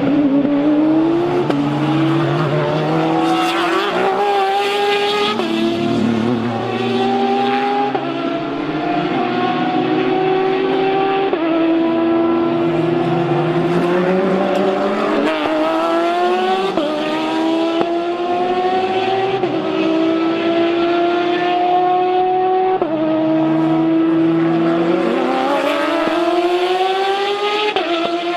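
GTE-class race car engine under hard acceleration, its pitch climbing through each gear and dropping sharply at every upshift, several times over.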